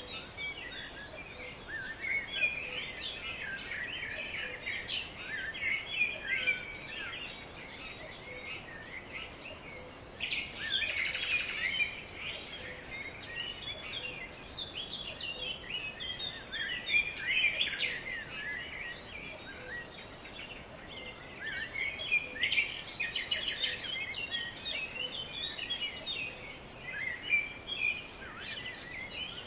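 Many small birds chirping and twittering at once, a dense chatter of short high calls over a steady background hiss.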